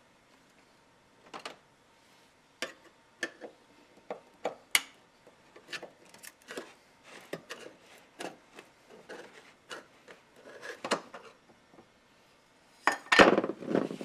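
Irregular light clicks and knocks of small objects being handled and set down on a work surface, then a louder rustling scrape near the end.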